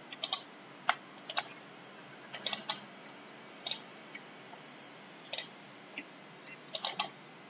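Sharp clicks of a computer mouse, some single and some in quick double-click pairs or short runs, spaced about a second apart.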